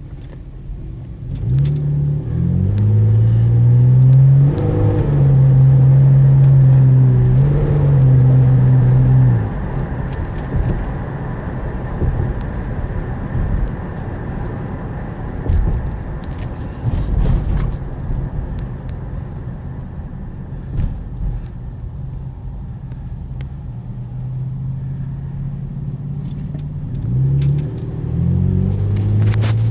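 2001 Nissan Xterra engine under hard acceleration, its pitch climbing and stepping through gear changes, loudest for several seconds. It then eases off to a steady cruise with road noise and pulls hard again near the end. Hard acceleration is the condition under which the owner reports a misfire with no check engine light.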